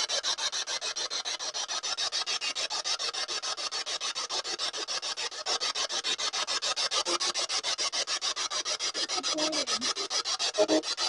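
Spirit box sweeping through radio frequencies: static chopped into rapid, even pulses many times a second, with faint snatches of voice near the end.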